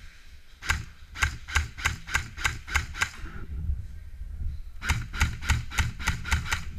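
Airsoft rifle firing rapid single shots, about four a second, in two strings of roughly ten and then seven shots with a short pause between.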